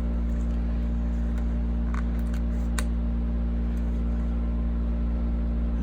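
Steady low mechanical hum, like a motor or appliance running, with a couple of faint light ticks from sticker sheets being handled about two to three seconds in.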